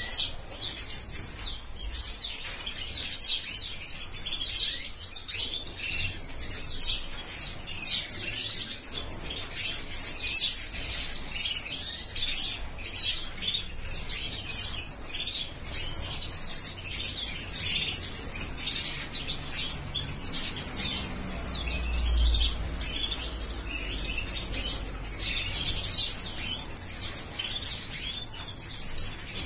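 Many small caged birds chirping and calling together in an aviary, short high chirps overlapping without a break.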